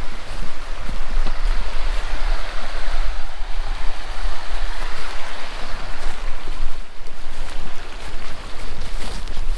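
Steady rush of a mountain river or stream's flowing water, with wind buffeting the microphone.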